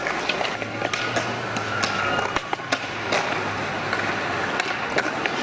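Skateboards on concrete: wheels rolling with a low steady rumble through most of it, amid frequent sharp clacks and knocks of boards and wheels hitting the ground.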